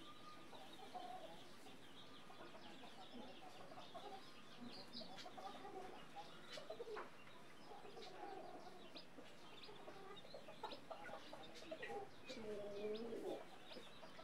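Brooding hen clucking in short, repeated calls while her chicks peep. Near the end comes one longer, louder call from the hen.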